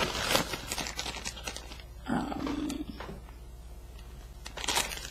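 Plastic packaging crinkling and rustling as haul items are handled, with a short low vocal hum about two seconds in.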